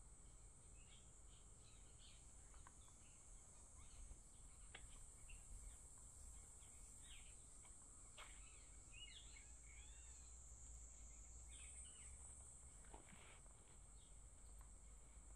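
Faint birds chirping, with scattered short calls and quick sweeping notes, over a steady high insect buzz. A faint low rumble lies underneath.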